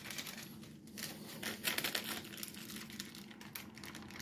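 Waxed paper crinkling and rustling in irregular faint crackles as a freshly baked sponge sheet cake is handled in it.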